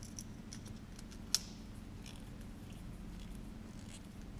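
Screwdriver tightening the terminal screws of an extension-cord repair plug: faint scraping and small clicks, with one sharper click just over a second in, over a low steady hum.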